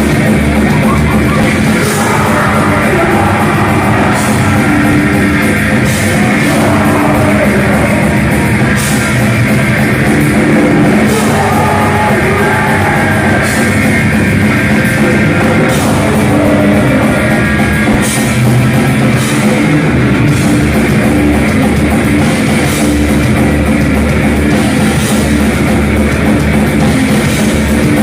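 Heavy metal band playing loud, with distorted electric guitars, a pounding drum kit with cymbal crashes, and vocals.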